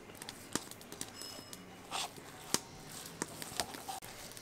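A thick paste being mixed by hand: faint soft, sticky squishes and scattered light clicks.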